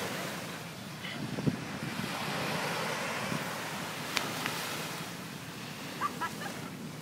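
Small surf waves breaking and washing up a sandy beach, a steady rush of water with wind buffeting the microphone. A few brief sharp clicks cut through, the loudest about a second and a half in.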